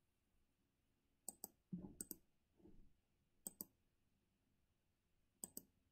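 Computer mouse clicking in a quiet room: three quick double clicks about two seconds apart, with a faint low sound about two seconds in.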